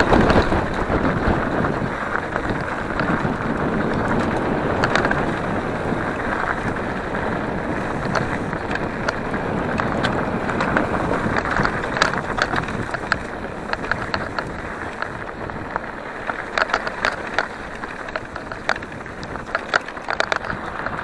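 Mountain bike rolling along a dirt forest trail: wind rushing over the handlebar-mounted microphone and the tyres running on dirt, with sharp clicks and rattles from the bike over bumps, more frequent in the second half.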